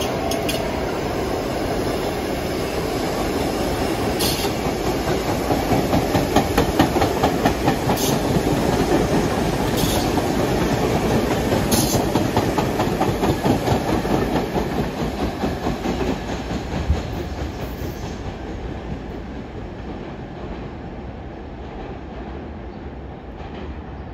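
New York City subway train running past on the tracks, its wheels clicking rhythmically over rail joints. It grows louder, peaks, and then fades away as it recedes.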